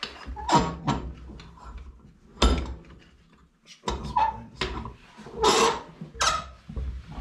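Irregular metallic clanks and knocks at a Leinen bench vise as a soldered metal test plate is clamped and the vise bar is worked. The loudest knock comes about two and a half seconds in, and a cluster of knocks follows later on.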